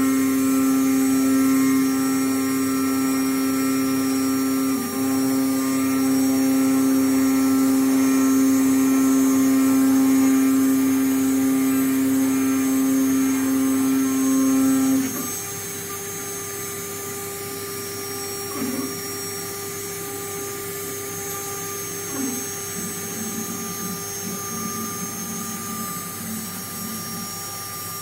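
The spindle motor of a small DIY CNC milling machine runs with a steady high hum while a wide cutter mills an aluminium block. About halfway through, the hum stops, leaving a quieter steady machine noise.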